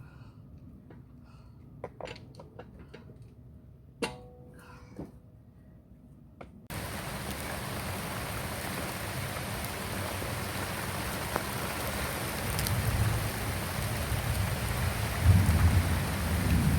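Scattered light clicks and a single metallic clunk with a brief ring, then, about a third of the way in, a sudden switch to a loud, steady hiss with a low rumble that swells near the end.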